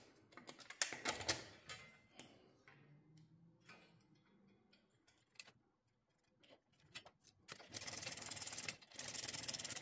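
Scattered clicks and taps of small metal parts being handled on a metal plate, then from about eight seconds in a fast, even ratcheting click of a socket wrench running down the bolts that hold a bathroom exhaust fan motor to its sheet-metal housing.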